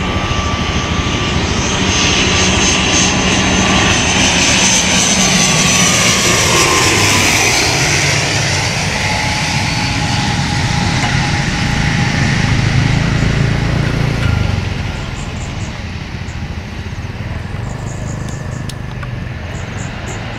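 ATR 72-600's twin Pratt & Whitney PW127M turboprops and propellers on landing, passing close by: a loud drone with a whining tone that falls in pitch as the aircraft goes past. About three-quarters of the way through, the sound drops off as it rolls away down the runway.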